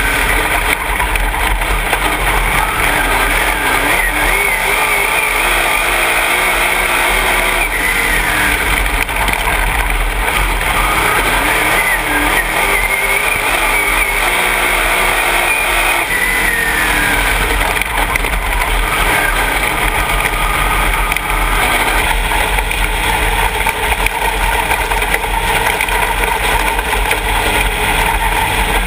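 Dirt late model's V8 engine heard from inside the cockpit at racing speed, its pitch rising and falling repeatedly as the car goes on and off the throttle around the dirt oval, then running steadier near the end.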